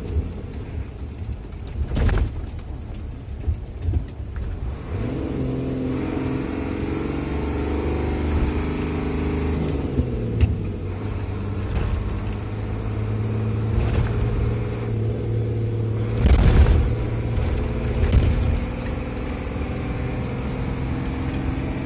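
Isuzu FVR truck's six-cylinder diesel engine heard from inside the cab while driving under load: the revs climb, drop about ten seconds in, then hold steady. A couple of brief thumps from the cab, about two seconds in and again after sixteen seconds.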